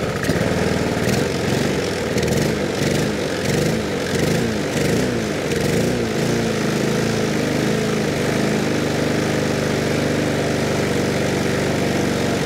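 Honda lawnmower engine running, its speed surging up and down in quick, regular swings for the first half, then settling to a steadier run. This is governor hunting, which the owner puts down to the wrong tension on the governor spring.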